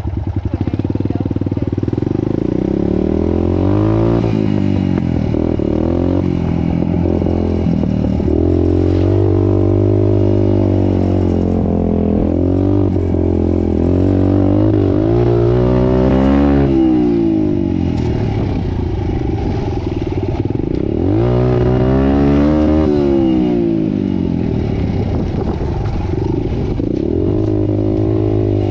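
Dirt bike engine running under way, revving up and dropping back several times as the throttle is worked.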